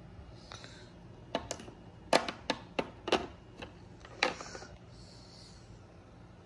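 A tool kit being handled: a string of sharp clicks and clacks, about eight in three seconds, with brief soft rustling before and after them.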